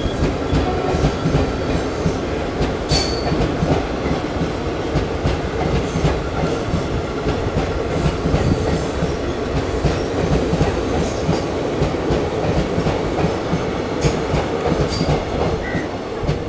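Blue Indian Railways passenger coaches passing close by at speed: a steady, loud rush of wheels on rail with a rhythmic clickety-clack over the rail joints and a brief high squeal about three seconds in.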